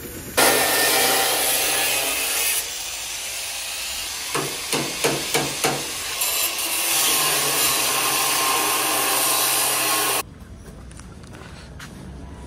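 Angle grinder cutting into the steel of an old Maruti Gypsy body panel: a loud, steady hiss over the motor hum. In the middle come about six quick hammer blows on a chisel against the metal, then the grinding resumes and stops abruptly near the end.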